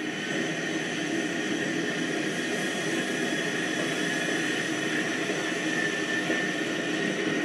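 An N-gauge model E 44 electric locomotive moving off along the layout track, pulling its train: a steady high whine from its small electric motor over the rolling noise of the wheels, rising sharply at the start and then holding even.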